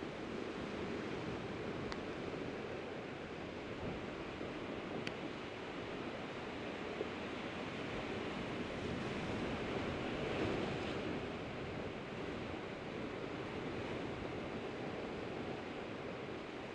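Sea surf washing on a rocky shore: a steady rushing wash that swells louder about ten seconds in, with a couple of faint clicks.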